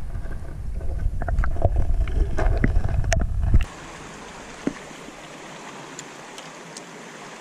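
Muffled low rumbling and clicking of water against a submerged action camera. About three and a half seconds in, it cuts off suddenly to the steady rush of a shallow river, with one sharp click a second later.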